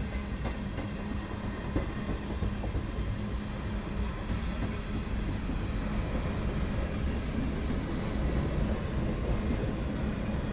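Freight cars of a manifest train, tank cars and covered hoppers, rolling steadily past: a continuous rumble of steel wheels on rail with faint clicking over the rail joints. A steady low hum runs underneath.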